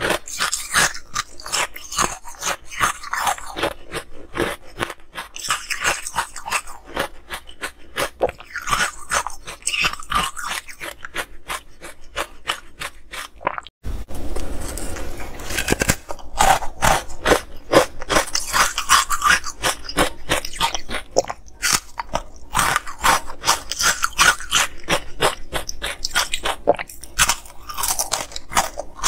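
Close-miked crunching and chewing of frosted ice discs, a dense run of sharp cracks one after another. About halfway through there is a break, then a couple of seconds of soft scraping as chopsticks dig an ice disc out of green powder, and the crunching starts again.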